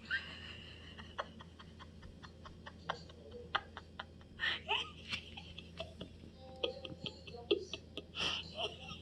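Soft, breathy laughter in short bursts, mixed with scattered small clicks.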